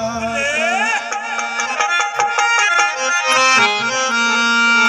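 Live qawwali instrumental passage: a harmonium playing a held melody over tabla strokes, with deep drum beats that stop about half a second in.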